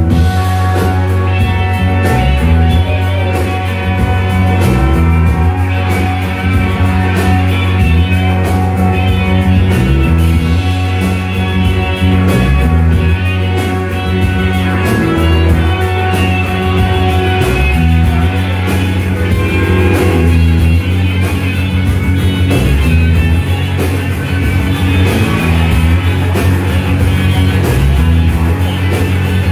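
Live rock band playing loud: electric guitar over drums, with a low bass line stepping between notes.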